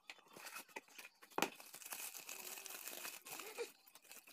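Honeycomb-cut kraft paper packing wrap being pulled open and crumpled by hand, a dense crinkling and rustling with one sharp crackle about a second and a half in.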